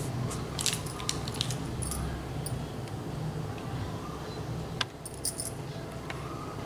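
Handling noise of a paper sheet and a marker pen being moved and picked up: scattered small clicks and light rattles, a cluster of them about a second in and one sharp click near five seconds, over a steady low hum.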